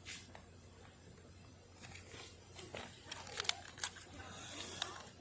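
Handling noise from a camera being held: scattered rustling and light clicks, busier and louder from about halfway through, with a few sharp clicks.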